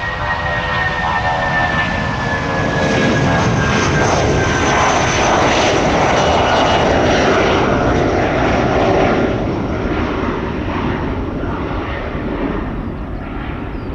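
Airbus A319 twin jet engines at takeoff thrust as the airliner lifts off and climbs away: a loud, steady roar with a whine that falls in pitch over the first few seconds. It is loudest in the middle and slowly fades toward the end.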